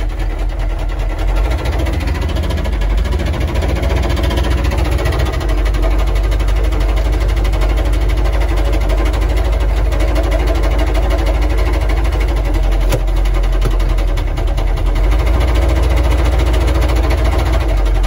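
Humvee's diesel V8 running with a hard knock, heard from inside the cab: rod knock, with the engine showing almost no oil pressure.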